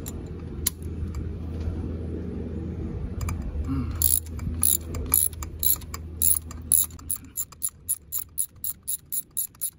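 Ratchet wrench clicking as its handle is swung back and forth on a long extension and 14 mm spark plug socket, loosening a spark plug. The clicks start about four seconds in and come faster toward the end, over a low steady hum.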